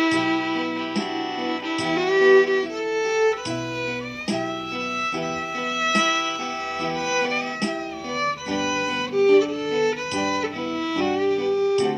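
Violin playing a melody over a backing track with plucked-string chords and bass.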